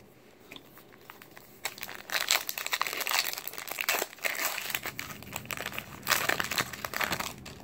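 Foil wrapper of a 2017 Topps Chrome baseball card pack being opened by hand, crinkling in a run of bursts from about two seconds in until near the end.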